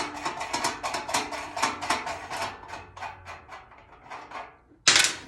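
Rapid metallic clicking, about five clicks a second, of a ratchet wrench working the front wheel nuts off a tractor frame; the clicking slows and fades, and a loud sharp clank comes near the end.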